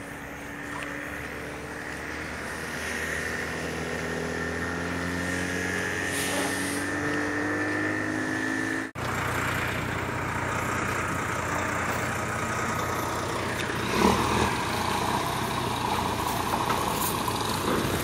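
Road traffic: motor vehicle engines running and accelerating, their pitch rising slowly. About halfway the sound breaks off abruptly and goes on as a steadier engine hum, with a single knock about two-thirds of the way through.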